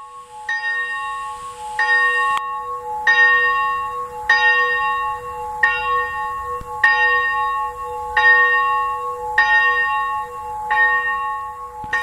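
A single church bell tolled slowly, struck about ten times at an even pace of roughly one stroke every second and a quarter, each stroke ringing on under the next. It is a solemn toll rung for peace.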